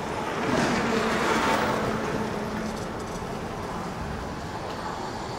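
A road vehicle passes close by on the street, its noise swelling about half a second in and fading away after a couple of seconds, over steady traffic noise.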